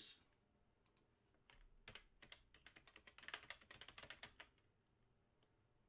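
Faint, rapid clicking of keys on a computer keyboard being typed on, lasting about three and a half seconds from about a second in.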